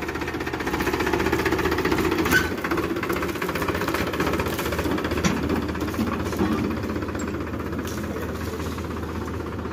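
Powertrac Euro 50 tractor's diesel engine running steadily with a rapid knocking clatter.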